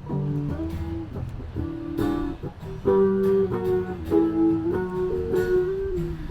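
Live guitar music from street musicians: a guitar strummed and picked through a run of chords, the notes changing every half second or so.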